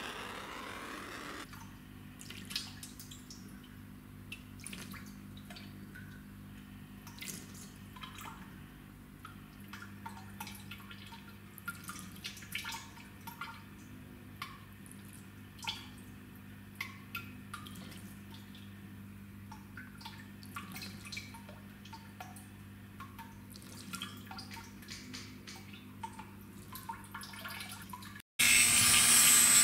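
Water from a brass face fountain trickling and dripping into its metal basin, with irregular small drops plinking over a low steady hum. It opens with about a second and a half of a gas soldering torch hissing.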